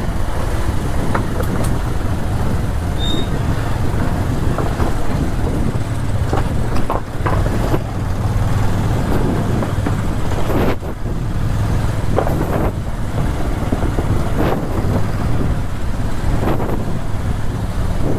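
Motorcycle engine running steadily under way, a continuous low drone with a few brief knocks from the road.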